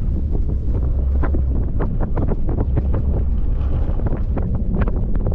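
Heavy wind buffeting the microphone of a camera riding on the towing truck: a steady low rumble and rush, broken by frequent irregular crackles and knocks.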